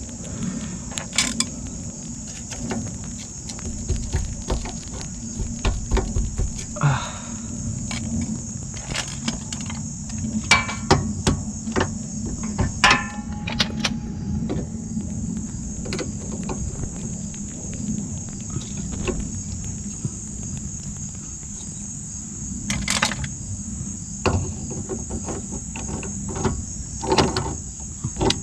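Crickets chirring steadily, with scattered sharp clicks, taps and knocks of hand tools and metal parts as a subframe bushing support collar is worked into place, including a brief rattle about halfway through.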